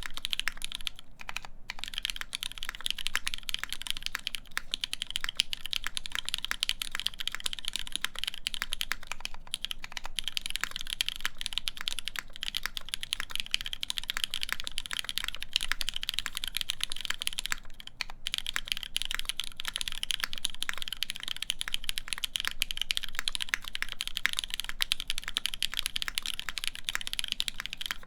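Continuous fast typing on a custom Eagle v3 mechanical keyboard with lubed Cherry MX Black linear switches on a full polycarbonate plate and Cherry Desko keycaps: a dense stream of key clacks, with a brief pause about two-thirds of the way through.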